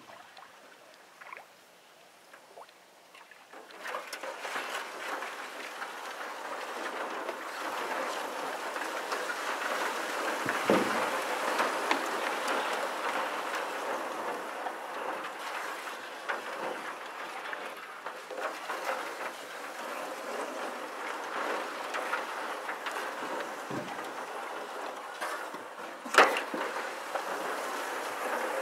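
Reeds and lake weeds scraping along the hull of an aluminum Grumman canoe as it glides through them, a noisy, dense rustling hiss that starts about four seconds in. Scattered ticks, and one sharp knock near the end.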